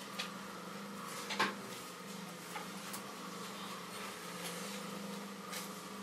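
Potter's wheel motor humming steadily, with a few light knocks over it; the loudest knock comes about a second and a half in.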